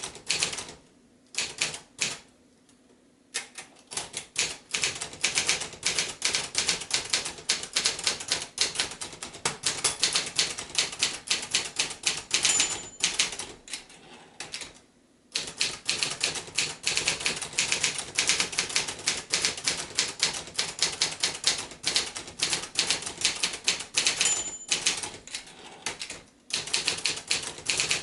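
Manual portable typewriter (1983 Sears Achiever, a Brother JP-7) being typed on at a quick pace: rapid runs of key and typebar clacks broken by short pauses. Twice a short high ding of the margin bell rings near the end of a line, shortly before a pause.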